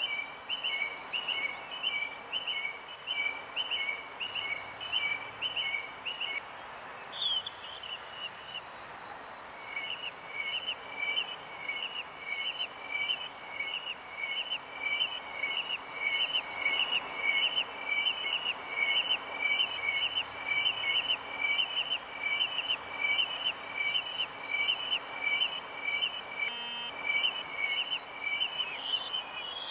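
Cricket-like chirping: a steady high-pitched buzz with a fast, regular run of chirps, about three a second, over a soft hiss. The chirps stop for a few seconds about a quarter of the way in, then resume.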